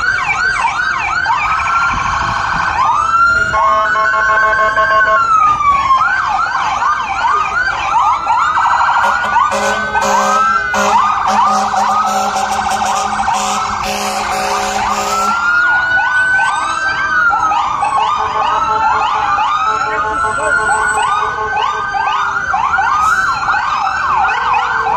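Several emergency-vehicle sirens sounding together, overlapping slow wails and fast yelps. A steady horn note holds for several seconds in the middle.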